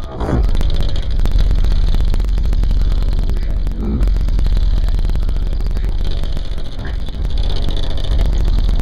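Very loud, bass-heavy music from a car audio system driving two 18-inch MMATS Juggernaut subwoofers, heard against the outside of the car. The deep bass dominates and the sound is rough and distorted.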